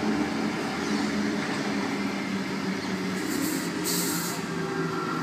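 Sydney Trains Tangara electric multiple unit arriving at a platform: steady rolling noise with a low hum. A brief hiss comes about three seconds in.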